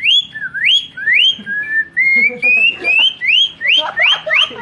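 A boy whistling an imitation of a songbird's call. It is a run of quick upward-sweeping whistled notes, about three a second. In the middle comes a short series of notes climbing step by step in pitch, and then the rapid upsweeps return.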